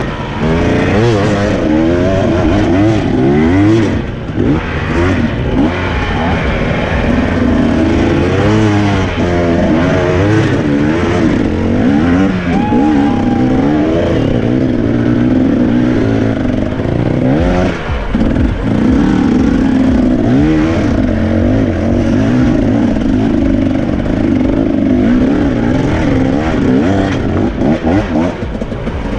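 2017 Husqvarna TE 250 two-stroke enduro motorcycle engine revving hard under load on a steep rocky climb, its pitch rising and falling constantly with the throttle. The revs hold steadier in the second half.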